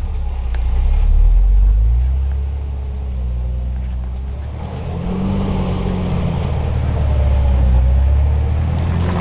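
Jeep TJ engine running under load on a trail, its revs rising and falling as the driver works the throttle, with the pitch climbing about five seconds in.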